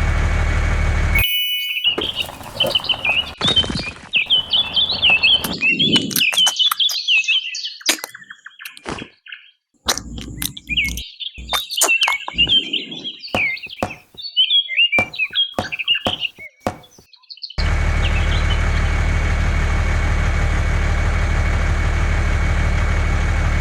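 A steady engine-like hum that cuts off about a second in, giving way to birds chirping with scattered clicks and knocks; near the end the steady hum returns abruptly.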